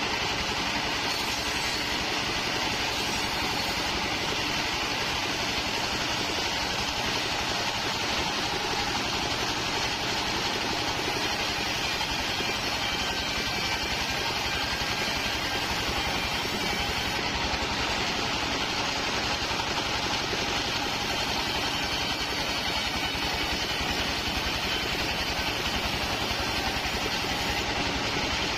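Mobile band sawmill running steadily: its engine and band blade make an even machine noise while waru (sea hibiscus) timber is sawn into boards.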